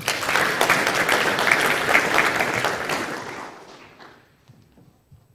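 Audience applauding, strongest for about three seconds and then dying away about four seconds in.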